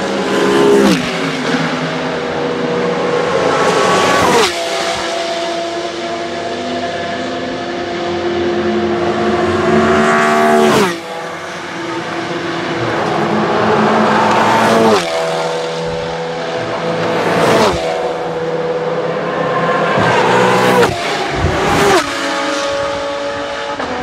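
GT and touring race cars passing one after another at full throttle, about seven in all, each engine note dropping sharply in pitch as the car goes by.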